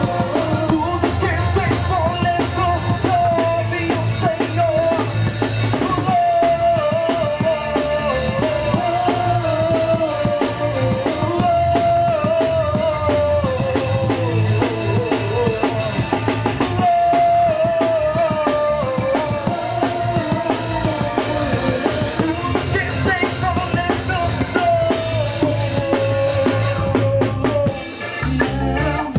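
A worship band playing an up-tempo song, with a full drum kit (kick, snare and rimshots) driving a steady beat under a wavering melody line. The music briefly drops away near the end.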